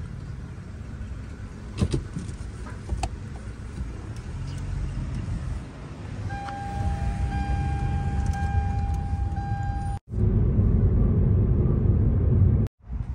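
Car engine and road rumble heard from inside the cabin of a slowly moving car, with a few light clicks early on. A steady high tone sounds for about four seconds in the middle, and the rumble grows louder in the last few seconds.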